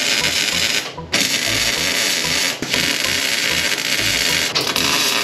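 Electric arc welding: the arc's steady hiss, broken by short stops about a second in and again near the end as the welder restarts the bead.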